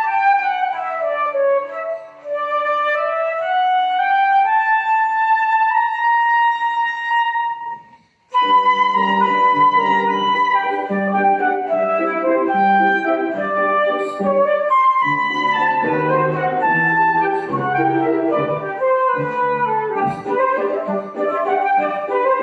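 Flute with piano accompaniment playing a waltz. The flute runs down, climbs back up and holds a long note. After a brief break about eight seconds in, it resumes with the piano's bass notes marking the waltz beat.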